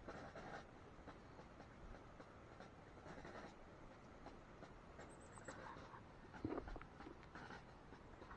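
Faint, irregular rustling of ground chicken feed being scooped by hand from a plastic basin and sprinkled over loose soil, with one slightly louder scrape about six and a half seconds in.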